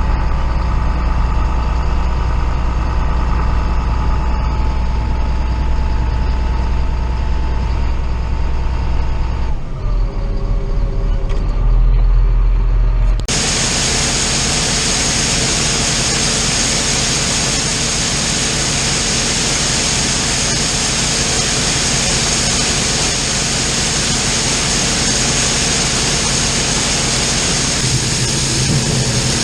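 Heavy farm diesel machinery running steadily with a low hum. About 13 seconds in the sound switches abruptly to a louder, hissier machine noise with a steady high-pitched whine.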